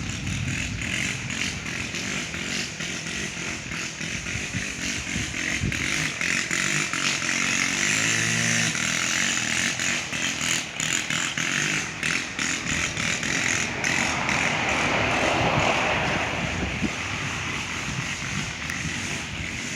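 Small petrol engines of lawn and yard equipment running steadily in the distance, with the sound of a passing vehicle swelling about fourteen seconds in.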